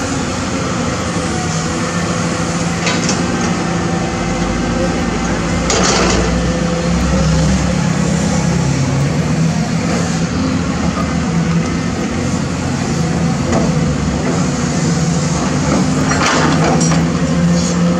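CAT 320D excavator's six-cylinder diesel engine running steadily under hydraulic load, with a rush of falling soil and rubble about six seconds in as the bucket empties into the dump truck's bed, and another scraping rush near the end as the bucket digs into the rubble pile.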